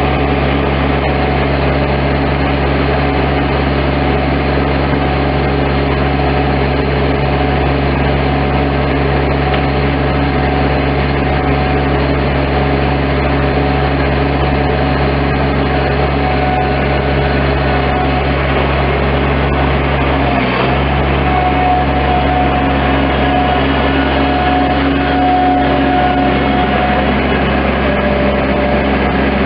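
Diesel engine of a 2016 Bobcat MT-85 stand-on skid steer running steadily. About two-thirds of the way through its note dips briefly, and a faint higher whine comes in after.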